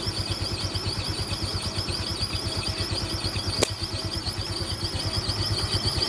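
Yamaha Mio scooter engine running with a repeated high chirping squeak from the CVT, 'cip cip cip', a rubbing that the owner suspects comes from the rubber 'pendel' parts inside the CVT. A single sharp click comes about three and a half seconds in.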